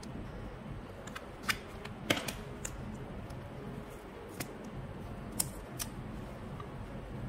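A clear plastic slime tub being turned over in the hands, giving about six sharp plastic clicks and taps, the loudest about two seconds in.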